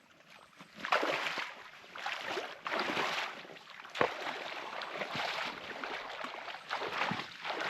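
Water sloshing and splashing in repeated surges, as from someone moving and working in shallow water, with one sharp knock about four seconds in.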